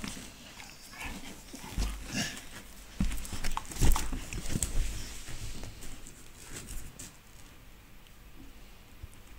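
Two American Staffordshire terriers play-fighting: the dogs scuffling and vocalising, with irregular knocks and rustles on the microphone, the loudest knock about four seconds in. It quietens after about seven seconds.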